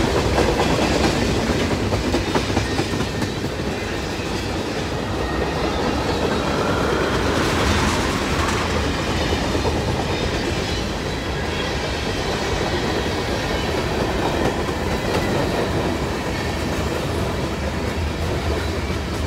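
Freight train cars rolling past on the near track: steel wheels clicking steadily over the rail joints in a clickety-clack, with the continuous noise of the passing cars.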